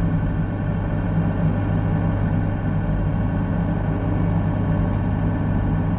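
Excavator's diesel engine running steadily under work, a constant low drone.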